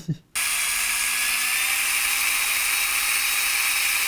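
Power drill running at a steady speed, a small number 33 bit boring into steel, starting about a third of a second in.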